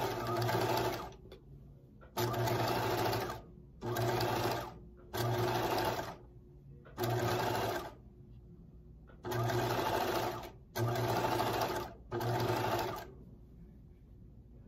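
Bernina sewing machine top-stitching fleece, run in short bursts of about a second each, stopping and starting about eight times, with a longer pause near the end.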